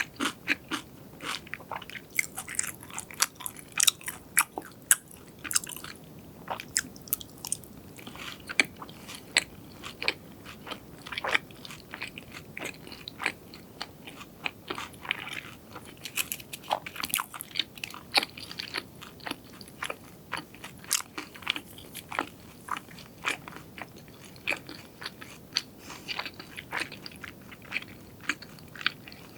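Close-miked eating: crunchy fried food being bitten and chewed, with irregular sharp crackles several times a second.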